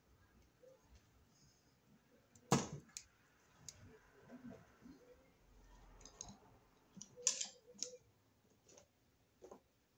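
Hand tools being handled: metal wire strippers clicking and tools being set down and picked up, in a few scattered sharp clicks and clacks. The loudest comes about two and a half seconds in, with another cluster around seven seconds.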